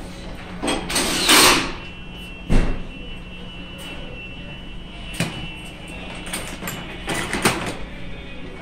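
Shop work under a truck on a lift: a few short bursts of a hand-held power tool, the loudest about a second in, and a sharp metal knock about two and a half seconds in, over a steady low hum.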